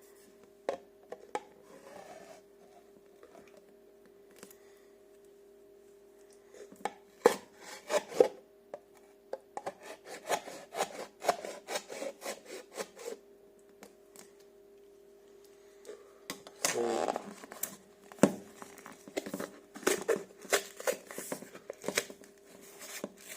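A blade prying and scraping at the sealed lid of a powder tub: scattered sharp clicks at first, then repeated rough scraping and rubbing in two busy stretches, the second one near the end.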